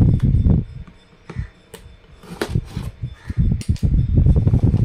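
Cardboard product box being handled and opened, with sharp clicks and scrapes over low, dull bumps of handling.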